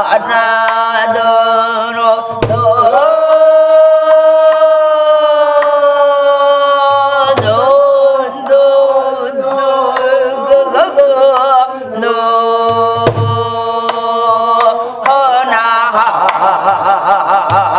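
Korean gueum, wordless vocables sung for dance: one voice holds long, wavering notes. Deep drum strokes fall every few seconds.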